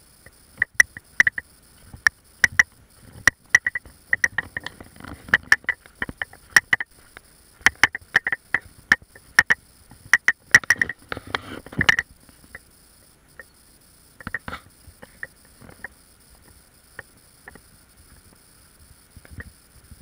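Irregular sharp clicks and knocks, several a second for about twelve seconds and then only now and then: handling noise from a GoPro being jostled as it is carried on a walk.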